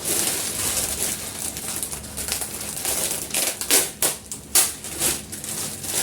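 Paper rustling and crinkling in irregular handfuls as a gift bag is unpacked, with a few sharper crackles about four seconds in.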